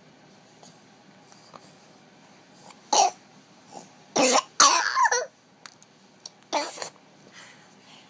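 Four short, loud coughs spread over about four seconds; the third is a little longer than the others.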